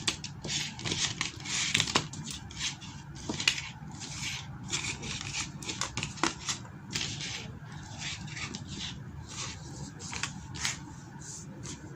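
Plastic packaging rustling and rubbing as small RC car parts are handled, in irregular short bursts.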